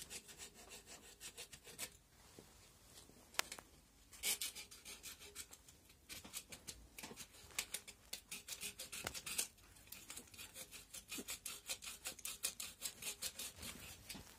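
Rhythmic rubbing strokes on the oily casing of a Tofaş manual gearbox, several a second with a couple of short pauses, as it is scrubbed clean of oil and grime.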